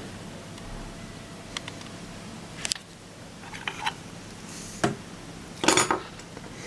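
Small metal hand tools handled and set down on a workbench: a scattering of sharp clicks and clinks, with the loudest cluster about five and a half seconds in, over a faint steady hum.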